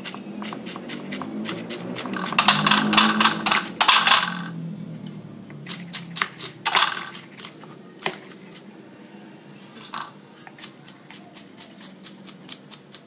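Kitchen knife chopping shallots and garlic on a wooden cutting board: a quick run of sharp taps for the first few seconds, then slower, spaced strikes, about three a second near the end.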